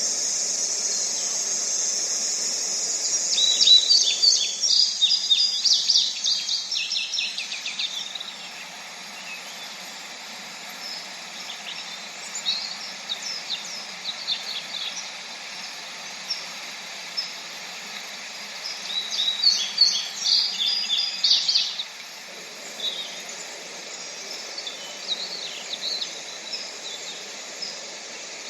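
Songbirds singing over a faint steady background noise: rapid trilled song about three to eight seconds in and again around twenty seconds in, with scattered short chirps between. A high steady hiss fades out in the first few seconds.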